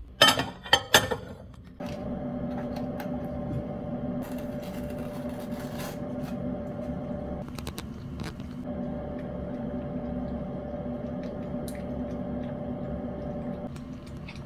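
A few loud knocks as a cat jumps down, then a steady electrical hum from a household appliance, with faint clicks of a cat licking and chewing raw meat from a glass bowl.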